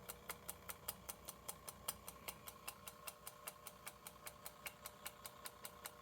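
Pocket watch ticking steadily on a Watch Master timing machine, about five sharp ticks a second, with a faint steady hum underneath.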